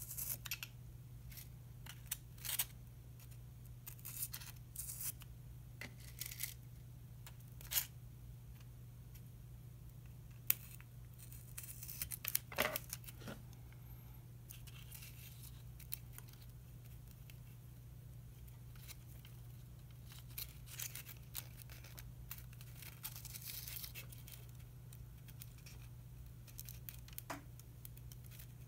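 Faint scattered rustles and light clicks of hands working at an insect spreading board: translucent paper strips shifting, insect pins pressed into the foam, and steel forceps handled. A low steady hum lies underneath.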